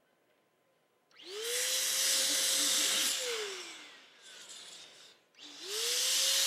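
Electric balloon inflator blowing air into a latex balloon: the motor whirs up to a steady pitch with a strong rush of air for about two seconds, then winds down. A second burst starts near the end.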